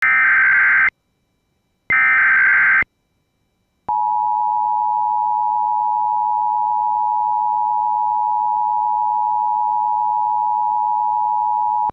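Emergency Alert System tones: two roughly one-second bursts of SAME header data about a second apart, then the EAS two-tone attention signal held steady for about eight seconds, which announces an AMBER Alert broadcast.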